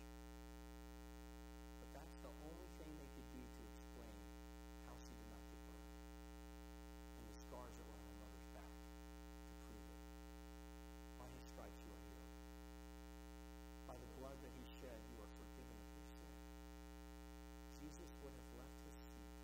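Steady electrical mains hum with a stack of overtones, picked up by the recording. Faint, indistinct speech comes through now and then beneath it.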